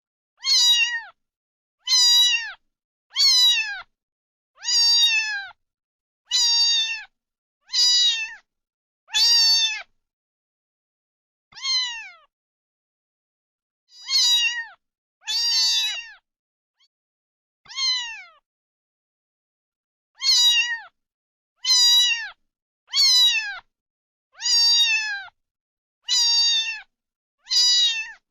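Domestic cat meowing again and again, about seventeen short meows each falling in pitch, with silence between them and a few longer pauses.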